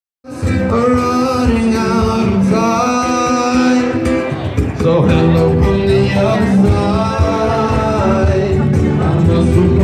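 Music: a song with a singing voice and guitar, starting abruptly just after the beginning.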